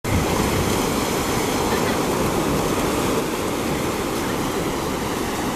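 Ocean surf breaking and washing up the beach, a steady rushing noise with a low rumble underneath.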